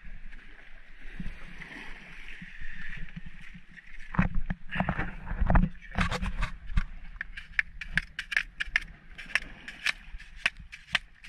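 A knife being driven through a spiny lobster's tail shell by tapping it with a stick: a run of sharp, even clicks, about three a second, through the second half. Before that come a few heavier knocks against the rock, over a noisy background of wind and water.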